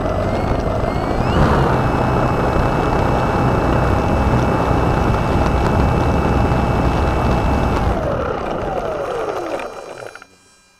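Onboard sound of the Multiplex FunCub RC plane's electric motor and propeller: a steady whine over rough vibration noise while taxiing, then the whine falls steadily from about eight seconds in and dies away near the end as the motor is throttled off and the propeller spins down.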